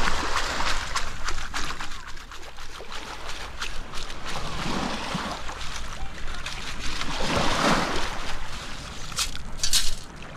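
Long-handled metal sand scoop digging into wet sand in shallow surf, with water sloshing and sand and shells clicking against the metal. Near the end, shells rattle sharply in the perforated scoop basket as it is lifted and sifted.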